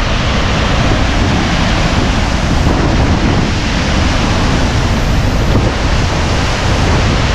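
Waterfall close up: a loud, steady rush of falling water, with wind and spray buffeting the microphone.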